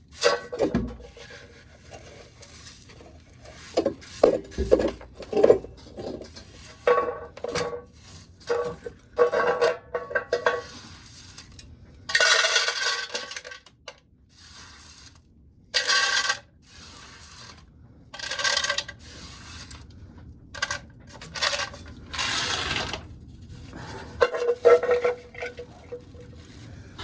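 Clattering and clinking of a metal pail and corn cobs being handled, with several rattling rushes about a second long.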